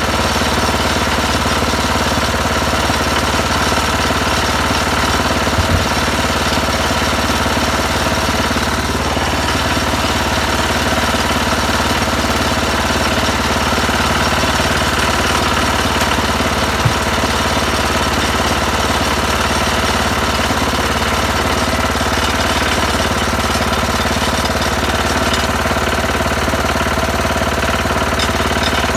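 Single-cylinder Tecumseh HH120 engine of a 1968 Sears Suburban 12 garden tractor, running steadily.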